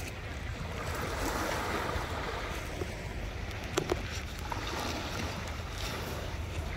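Surf washing on a beach, with wind on the microphone. Two small clicks close together a little under four seconds in.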